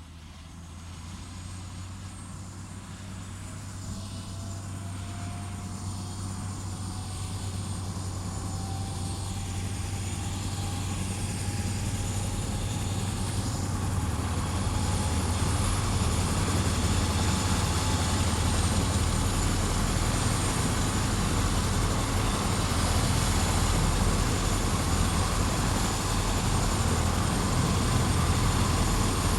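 Helicopter powering up for take-off. A low steady rotor and engine noise grows louder over about the first fifteen seconds, with a whine rising slowly in pitch, then holds at full power.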